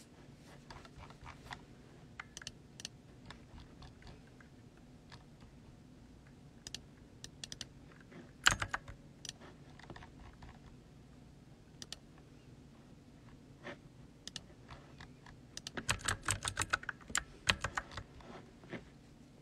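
Typing on a computer keyboard: scattered keystrokes, with a quick flurry about eight seconds in and a longer run of fast typing near the end.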